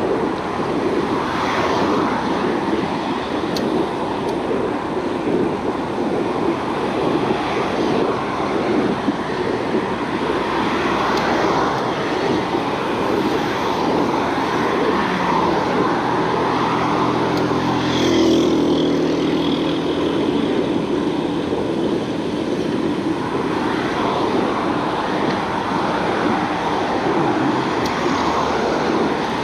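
Steady road-traffic noise from the street beside the cycle lane. About halfway through, one vehicle's engine hum swells and fades as it passes.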